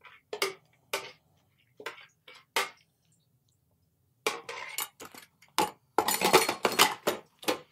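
A spoon tapping and scraping ground nut mixture out of a food processor bowl: a string of sharp clicks, a pause, then a denser, louder clatter of the bowl being handled and set back on the processor base near the end.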